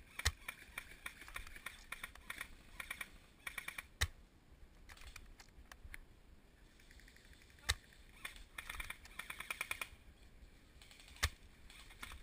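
Airsoft gunfire: repeated rapid bursts of clicking shots, with four louder single sharp shots about every three and a half seconds.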